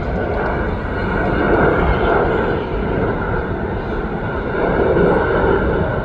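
Jet airliner engines running loud and steady, a rushing noise with a steady high whine, swelling about a second and a half in and again near the end.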